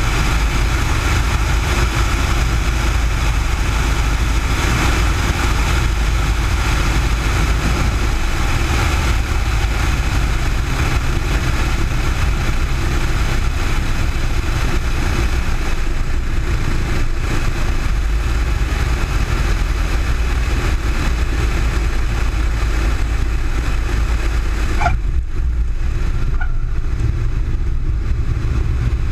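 Cessna 172's engine and propeller running at low landing power under heavy wind and propwash noise on an outside-mounted microphone, steady and loud. About 25 seconds in the high rushing noise drops away sharply, leaving the lower engine sound, with a brief faint squeak at that moment.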